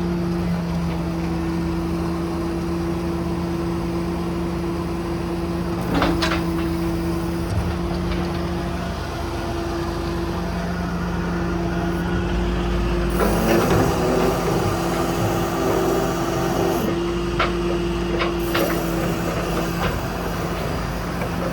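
Cummins diesel of a crane truck running steadily, with the hydraulic crane in operation. A clunk about six seconds in, a hissing stretch from about 13 to 17 seconds, and a few clicks near the end.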